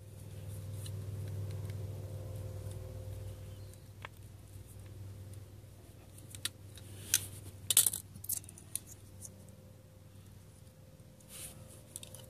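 A handheld wire stripper/crimper clicking and snapping as blue insulated spade connectors are crimped onto the wires, with the sharpest clicks around the middle. A low rumble swells in the first few seconds and fades.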